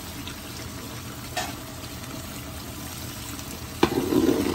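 Oil and ground spices sizzling and bubbling in a large aluminium stock pot. Near the end a stainless-steel spade knocks against the pot and starts stirring the masala, much louder than the sizzle.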